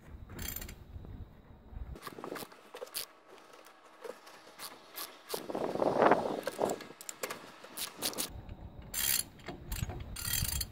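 Hand work on a loader wheel's lug nuts: scattered metallic clicks and scrapes from a ratchet wrench and nuts, with one longer, louder scrape about six seconds in and a quick run of ratchet clicks near the end.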